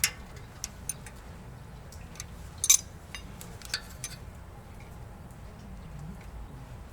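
Several sharp metallic clicks and clinks at irregular intervals, the loudest a quick double clink about two and a half seconds in, over a low steady hum; they stop after about four seconds.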